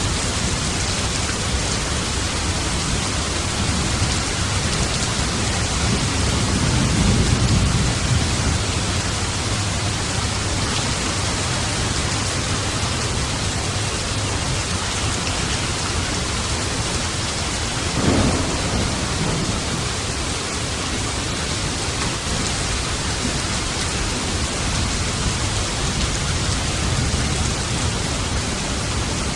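Steady heavy rain falling, with thunder: a low rolling rumble swells about a quarter of the way in, and a sharper thunderclap rumbles out a little past the middle.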